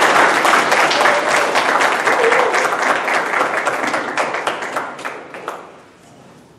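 Audience applauding, dying away over the last two seconds or so.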